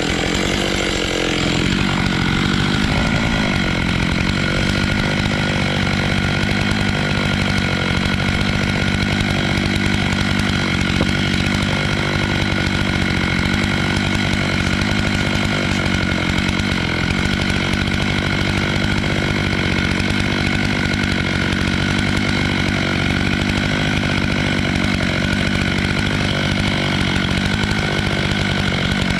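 Stihl MS 881 chainsaw running steadily at high revs, cutting black walnut through a 36-inch bar on an Alaskan chainsaw mill.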